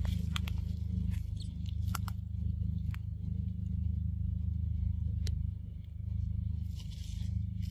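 Young macaque chewing on a corn cob: scattered sharp crunches and clicks with some rustling in the dry leaf litter near the end, over a steady low hum.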